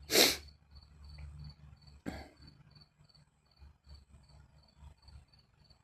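A faint high-pitched chirp repeating evenly, about two and a half times a second, like an insect calling. A single sharp knock sounds about two seconds in.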